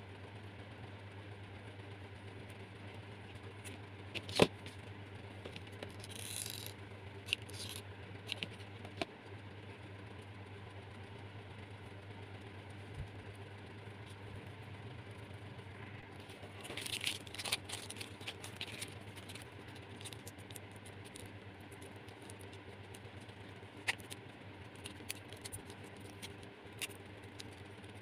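Scattered clicks and rustles of craft materials being handled: a jute-rope-wrapped bamboo tube, scissors and tape, with a sharp click about four seconds in and a burst of rustling around the middle. A low steady hum runs under it.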